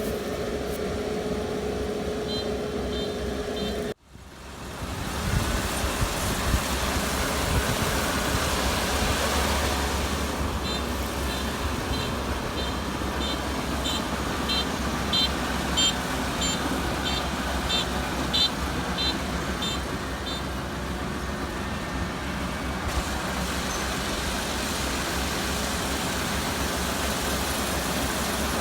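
Kubota ER470 combine harvester running steadily while harvesting rice, with a brief dropout about four seconds in. A series of short, high beeps sounds near the start and again from about ten to twenty seconds in.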